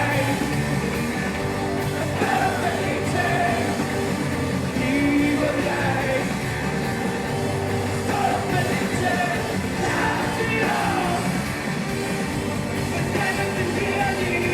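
Rock band playing live, with a male lead vocalist singing over guitars and drums, recorded loud from the crowd.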